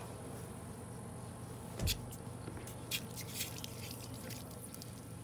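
Water dripping and leaking from an RV inline water filter as it is unscrewed from a spigot's threaded fitting, with a plastic-on-brass thump about two seconds in and a few light clicks of handling after it.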